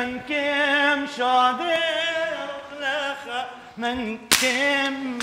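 A man's voice chanting a hymn unaccompanied, in a long ornamented line with wavering pitch. A single sharp crack sounds about four seconds in, louder than the singing.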